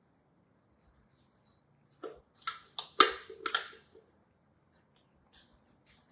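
A spatula knocking and scraping against the rim and inside of a stainless-steel Thermomix mixing bowl as thick meringue is scraped out: a quick run of about five sharp taps about two seconds in, then a couple of faint ones near the end.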